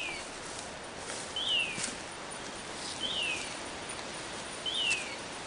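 A bird calling: a short, sharp note that jumps up and slides down in pitch, repeated three times about every second and a half, with faint clicks in the background.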